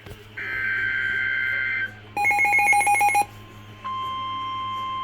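Emergency Alert System broadcast on NOAA Weather Radio: a buzzy burst of SAME digital header data, then a rapidly pulsing electronic beep, then, about four seconds in, the steady 1050 Hz weather radio warning alarm tone begins.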